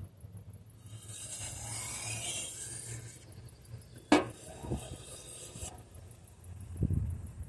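A sharpening stone in a guided sharpener rubbed along a knife edge in edge-leading strokes, taking off the burr, as one long gritty scrape. A sharp click about four seconds in and a low thump near the end.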